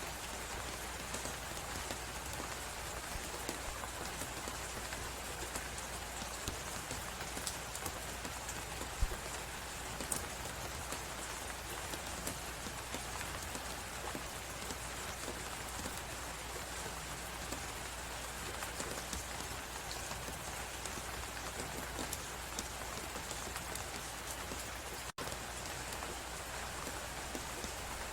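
Steady dense crackling and hiss of a fireplace layered with blizzard noise, sprinkled with small pops, cutting out for an instant about three seconds before the end.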